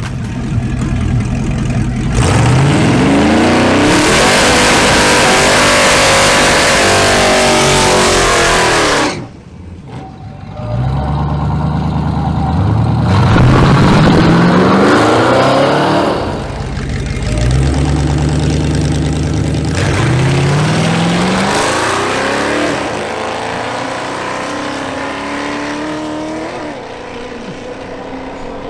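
Drag-racing cars accelerating hard at full throttle, the engine pitch climbing and dropping again with each gear change, in several waves. The first loud stretch cuts off suddenly about nine seconds in.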